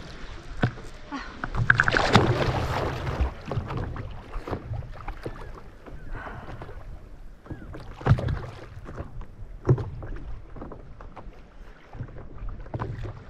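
A swimmer slides off a paddleboard into lake water with a loud splash about two seconds in. Water then laps against the board, with scattered smaller splashes from her kicking as she swims.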